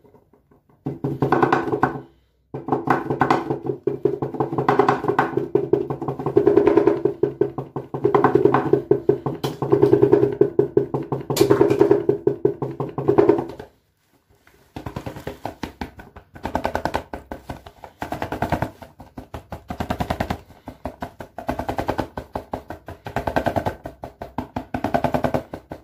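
Electric neck-and-shoulder massage shawl with its power drums pounding in rapid repeated taps on mode 11: dense runs of strokes, a short pause about 14 seconds in, then quick bursts of taps about once a second.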